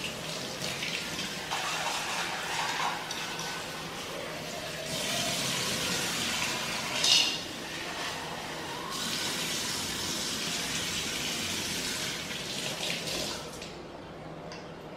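Kitchen tap running into a steel sink while a clay pot is rinsed and filled under the stream, the splashing changing as the pot is moved. A brief, sharper, louder sound about seven seconds in; the water stops near the end.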